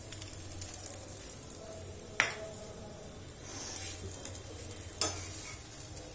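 Paneer paratha frying in oil on a tawa, a steady sizzle, with two sharp knocks about two and five seconds in.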